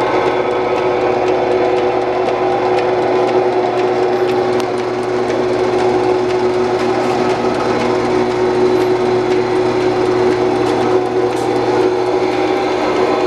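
Van Norman milling machine running under power: a steady motor-and-gearing drone with a strong constant hum that holds unchanged throughout.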